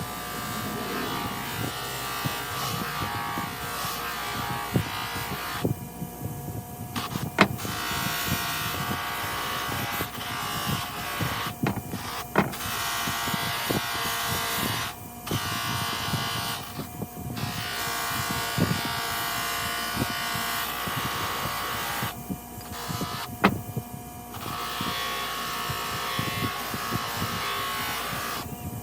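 Electric power tool running steadily against rusty steel, rust removal with a sanding drum or buffer wheel. Its gritty hiss drops out for a moment every few seconds, with a few sharp clicks along the way.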